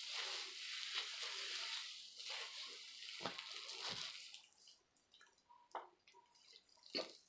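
Plastic-gloved hands rubbing hair bleach through wet hair: a wet, rustling swish for the first four seconds or so, then mostly quiet with a couple of short clicks near the end.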